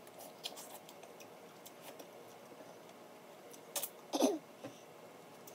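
Close-up eating sounds of snow crab: small clicks and wet smacks of chewing and sucking meat from the shell, with a louder click and a short sucking sound about four seconds in.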